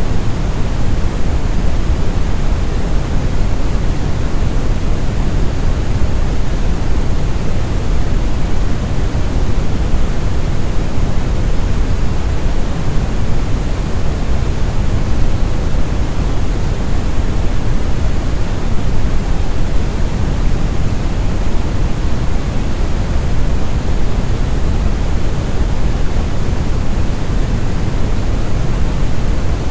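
Deep brown (red) noise: a smooth, steady rumbling hiss, strongest in the bass and falling away toward the treble, with no change.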